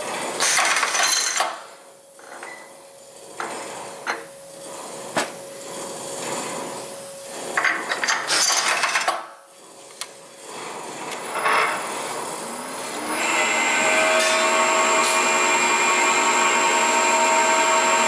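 Machine-shop work on a Volkswagen five-cylinder main bearing cap: irregular scraping and sharp clanks of metal and tools at first, then, about thirteen seconds in, a machine starts and runs with a steady hum, the milling machine at work on the cap.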